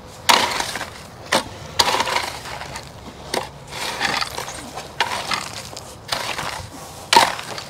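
A shovel and rake scraping and scooping gritty stone dust for a paver patio base: a run of irregular crunching scrapes, each a fraction of a second long and coming every half second to a second.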